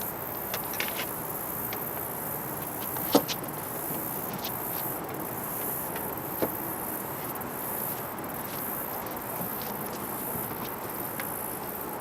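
Steady high-pitched buzzing of summer insects. A couple of light knocks sound about three seconds and six and a half seconds in.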